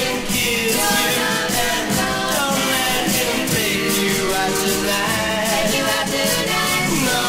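A mid-1960s rock and roll record playing: a band with a steady beat and melodic instruments.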